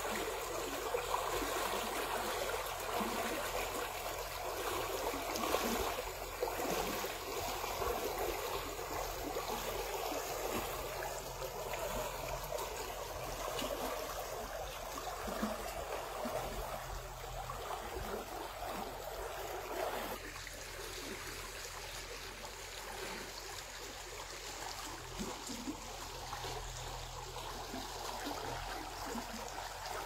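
Shallow stream flowing quickly over stones, a steady rush of water that drops a little in level about two-thirds of the way through.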